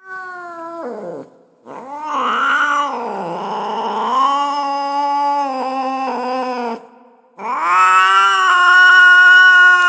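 Cat yowling in long, drawn-out caterwauls, the sound of an angry cat. A short wail falls away about a second in, a long wavering yowl follows for about five seconds, and another steady, louder yowl begins near the end.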